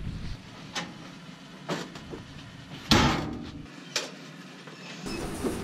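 A few sharp knocks, the loudest about three seconds in with a short ring after it: the lid of a top-loading washing machine being handled and shut.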